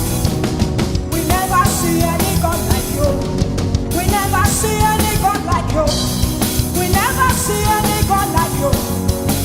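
Band music with a drum kit and a singing voice, playing steadily throughout.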